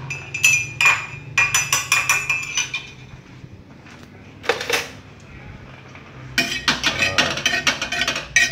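Metal spatula clinking and scraping against pots and a plate while fried rice is served out, in quick runs of strikes with a ringing note in the first few seconds, a lull with a single clack in the middle, and a dense run of clatter near the end.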